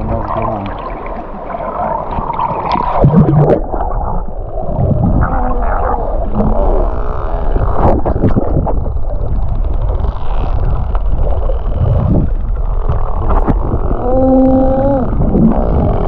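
Sea water sloshing and splashing around a handheld camera in the shallows, with a loud splash about three seconds in. The camera then goes under water and the sound turns muffled and gurgling as a bottlenose dolphin swims close by. A short pitched call that rises and then falls comes near the end.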